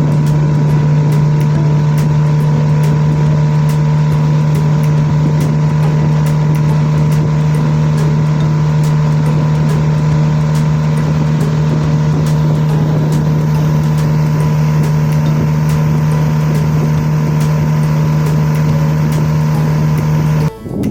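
Motorboat engine running steadily at one even pitch, a constant hum with overtones; it cuts off abruptly near the end.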